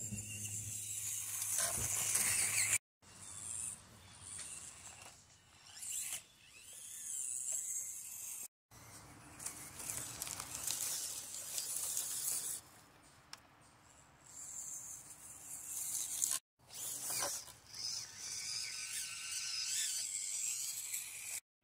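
Axial SCX24 micro RC crawler's small brushed electric motor and plastic gears whirring in spurts as it crawls over rocks and leaves, the sound broken off abruptly three times.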